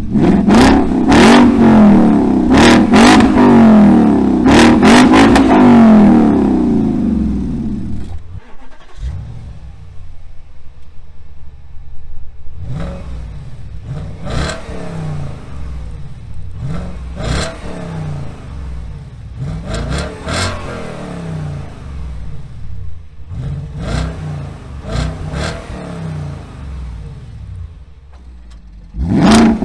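Audi S5's 4.2 litre V8 revved in a series of short blips through a Guerrilla Bypass cut-out exhaust, very loud for the first several seconds, then much quieter for most of the rest, then loud again near the end. The loud and quiet stretches fit the bypass valve being opened and closed, switching between the open cut-out and the stock muffled sound.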